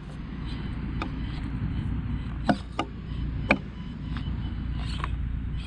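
Small Axial SCX24 RC rock crawler working its way over rocks, with a handful of sharp clicks and knocks from tires and chassis on stone over a steady low rumble.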